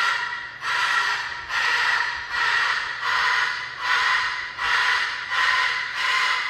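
Loud, breathy snorting huffs repeating about once a second, each lasting most of a second.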